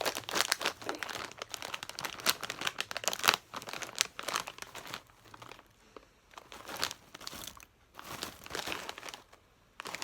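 Freshly opened plastic snack packet crinkling and rustling as it is handled, dense for about the first half, then only scattered crackles.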